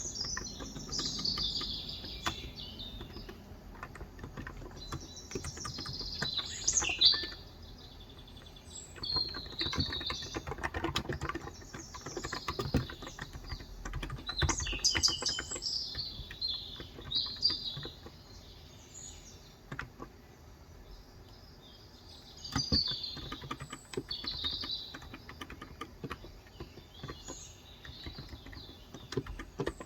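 Typing on a Cox Endeavor electro-capacitive (topre-style) 35 g tenkeyless keyboard, keystrokes coming in irregular runs, with birds chirping throughout.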